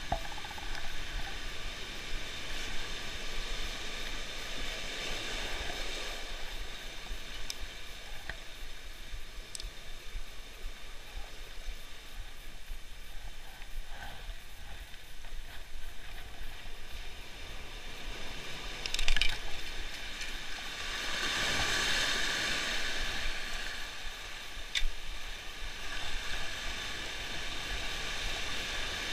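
Sea waves washing and hissing along the shore, swelling loudly twice, with a sharp knock about two-thirds of the way through and a faint click a little later.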